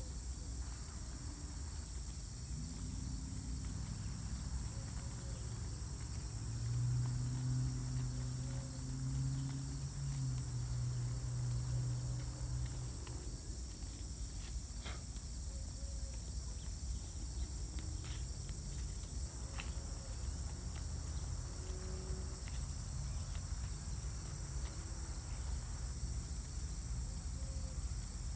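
Steady summer insect chorus, crickets trilling continuously in high, even bands. A low hum swells for several seconds in the middle and is the loudest sound, and a few faint clicks follow.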